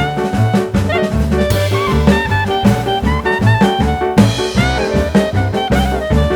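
Background jazz music with a walking bass line, drums and horns.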